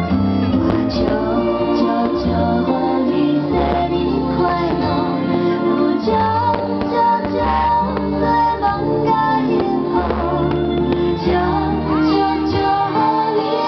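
Music: a song with a woman singing over sustained chords and a shifting bass line.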